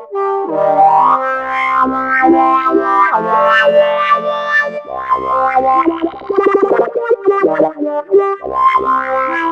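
A synthesizer loop of shifting pitched notes run through an Erica Synths AcidBox III, with a fast wobbling pulse about six to seven seconds in.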